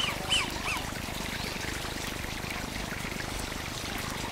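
Stream water running steadily, with a few short chirping bird calls that rise and fall in pitch in the first second.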